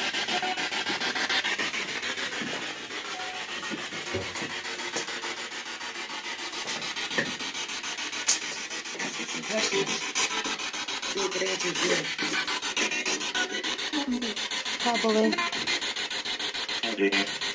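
Spirit box: a handheld radio scanner sweeping rapidly through stations, played through a small external speaker. It gives a fast, choppy hiss of static, broken in the second half by brief snatches of voice-like radio fragments, which the ghost hunters take for a spirit speaking.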